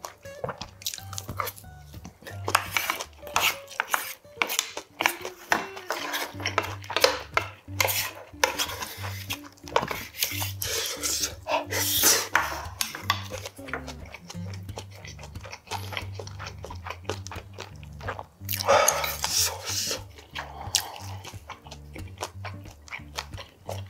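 Eating sounds: a wooden spoon clinking and scraping in a metal lunchbox of mixed rice, with chewing, over background music with a steady bass line.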